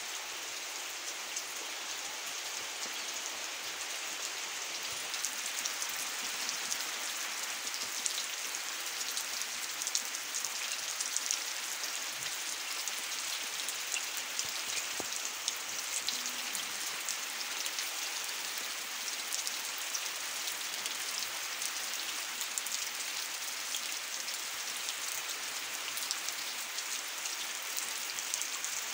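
Steady rain falling on trees, leaves and the ground: an even hiss dotted with many small drop ticks.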